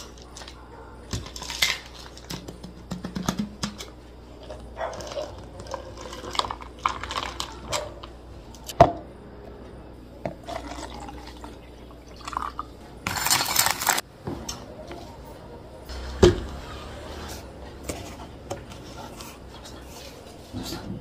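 Drinks being made in plastic cups: liquid poured in short runs, cups, jug and utensils knocked and set down on a wooden counter, with sharp clacks scattered through and a louder rushing pour about two-thirds of the way in.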